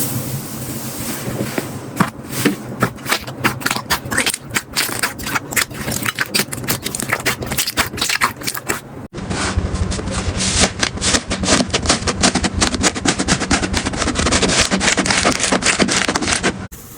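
Slime being squeezed and pressed by hand, giving rapid, dense crackling clicks and pops. About nine seconds in it cuts abruptly to another slime clip with the same crackling.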